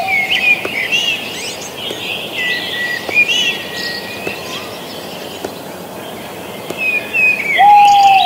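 Many birds chirping and calling over an even background hiss, with a long, level whistled note at the start and again near the end.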